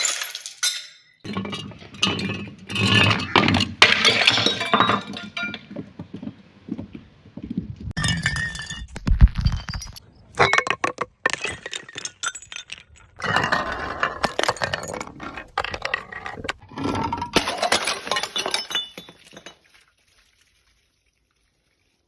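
Glass bottles breaking in a run of separate takes: sharp impacts and shattering, then shards clinking and rattling, each take cut off abruptly. It stops suddenly about two seconds before the end.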